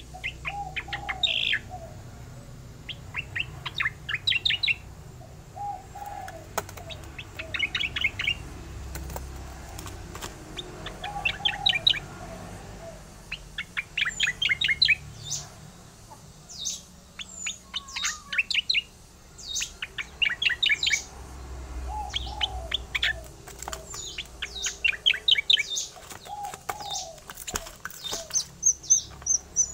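Caged striated grassbird (cica koreng) singing its rolling song: quick runs of rapid, high notes about a second long, repeated every two to three seconds. Lower, shorter notes come between the runs.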